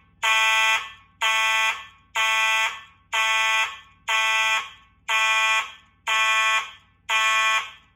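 Two Simplex 4903-9219 and 4903-9236 fire alarm horn strobes sounding the pulse pattern: a pitched electronic horn tone in even blasts about half a second long, about once a second.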